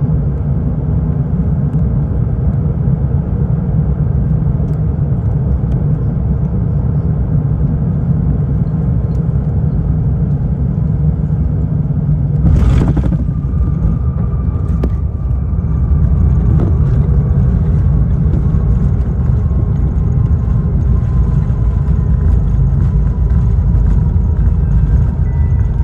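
Jet engines of an Airbus A350 airliner on approach: a steady deep rumble. A brief sharp rustle about halfway in is followed by a faint engine whine that slowly falls in pitch.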